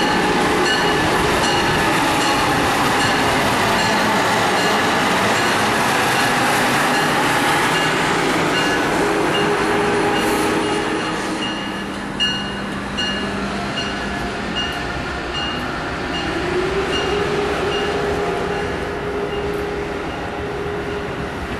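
Amtrak Acela Express high-speed electric trainset rolling past at close range: a steady rumble of wheels on rail with an electric whine that shifts in pitch, rising again in the second half. A short high tick repeats about twice a second, and the sound eases a little about halfway through.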